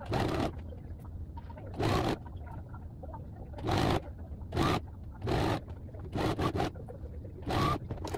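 Domestic sewing machine stitching in short spurts, stopping and starting about nine times as the fabric is turned and guided around a curved seam, over a steady low hum.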